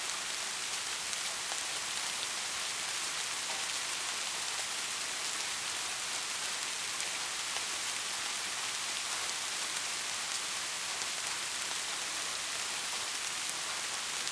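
Steady rain falling, an even hiss with many small drop ticks, weighted to the high end.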